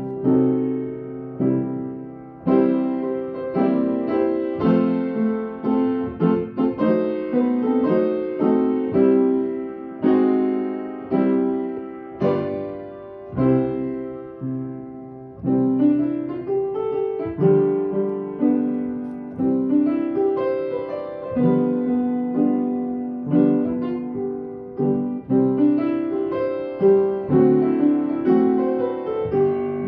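Solo piano playing slow chords, each one struck and left to ring and fade before the next.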